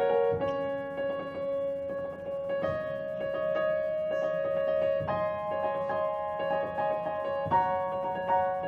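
Keyboard playing a slow run of held chords, the chord changing about every two and a half seconds.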